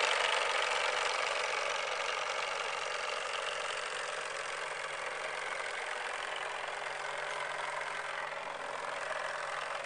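Model steam launch's two Midwest reciprocating steam engines and boilers running, a steady hissing chuff that grows a little fainter over the first few seconds as the boat pulls away.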